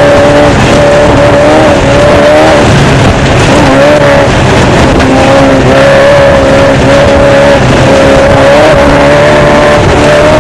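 Off-road desert race car's engine running hard at high, fairly steady revs, heard from on board the car, with brief dips and rises in pitch. A loud rushing noise runs over it throughout.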